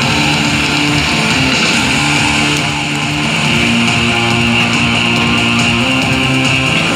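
Loud show music with guitar, playing over the arena's sound system, its bass line moving in held notes that change every second or so.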